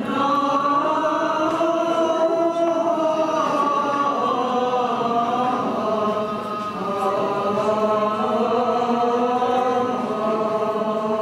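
Greek Orthodox Byzantine chant sung by several voices together, on long held notes.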